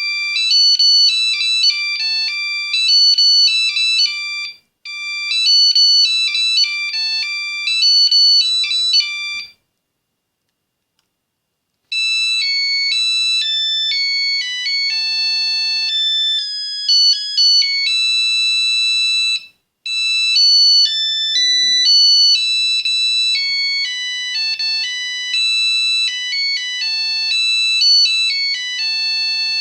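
Nokia 8110 mobile phone playing its ringtones: a high-pitched electronic melody plays twice and stops about nine seconds in. After a couple of seconds of silence, a different ringtone tune starts, with a short break partway through.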